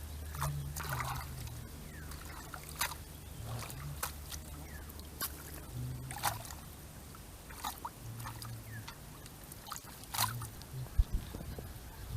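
Water trickling and dripping, with scattered sharp drips and small splashes every second or so, over a low steady hum.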